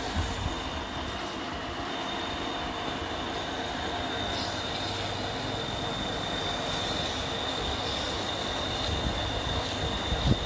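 Electric motor running steadily, its chuck spinning for work on wooden beads, with a thin high whine over a rough, noisy hum.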